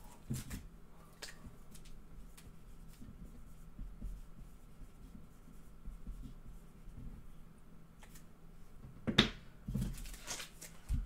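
Trading card packs and cards handled on a desk: faint scattered taps and rustles, with a louder rustle and a few taps about nine seconds in.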